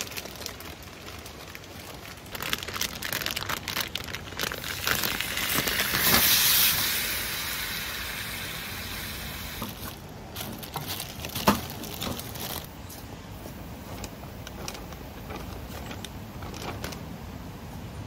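Plastic packaging crinkling and rustling as skewers are pulled out of their bag, with a louder hiss swelling about six seconds in and fading away, and one sharp click later on.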